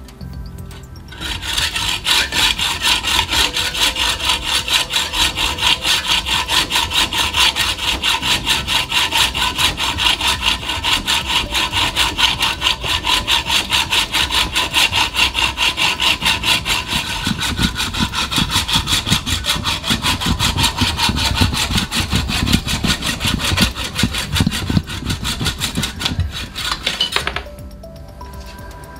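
Hacksaw cutting through a carbon-fibre bicycle fork steerer tube held in a saw guide, with steady, even back-and-forth strokes. The sawing starts about a second in and stops shortly before the end as the cut is finished.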